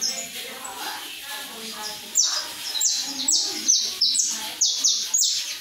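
Canário-da-terra (saffron finch) singing: starting about two seconds in, a phrase of about nine loud, sharp, high notes, each sliding downward, at roughly three a second.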